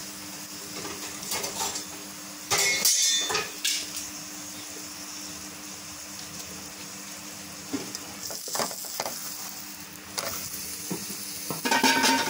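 Ghee sizzling steadily under a whole-wheat paratha frying on a hot nonstick pan. The sizzling flares louder about two and a half seconds in, and again near the end as the paratha is turned over onto its other side.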